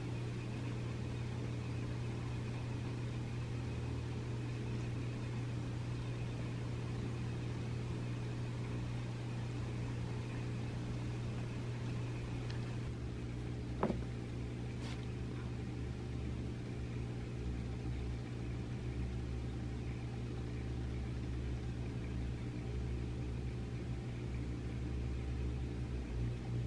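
Steady low machine hum, with a single short click about halfway through.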